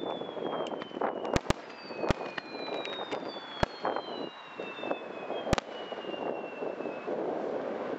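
Fireworks display: aerial shells bursting with about five sharp bangs over a dense crackle of smaller pops, while several long whistles slowly fall in pitch through the middle of it.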